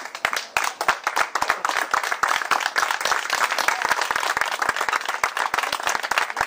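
A crowd of guests applauding, many hands clapping. The clapping thickens over the first second and stays dense.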